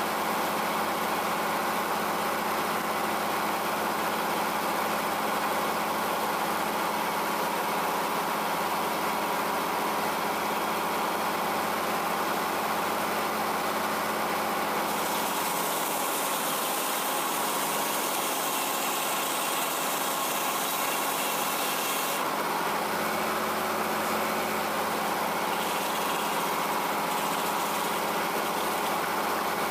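Engine power unit of a 00 Frick circular sawmill running steadily and driving the mill. A hiss joins it for about seven seconds midway.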